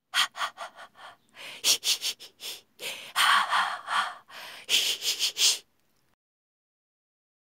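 A person making sniffing and huffing breaths: a quick run of short sniffs at first, then longer, louder huffs, stopping a little past halfway.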